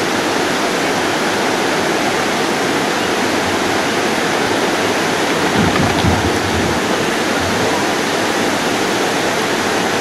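Water pouring over a river weir: a steady, loud rush of white water. A little after halfway a brief low rumble rises over it.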